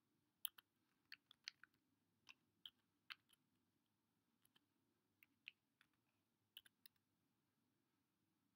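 Keystrokes on a computer keyboard: a run of separate sharp key clicks at an uneven typing pace, stopping about seven seconds in.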